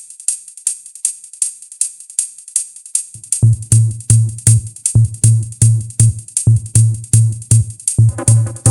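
Electronic dance music with a drum machine, in a stripped-back breakdown. At first only a steady ticking hi-hat plays. About three seconds in, a pulsing boosted bass note comes in under it, and near the end the synth parts start to return.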